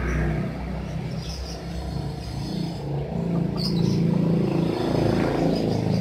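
A motor vehicle's engine running, a low steady rumble that grows louder about halfway through.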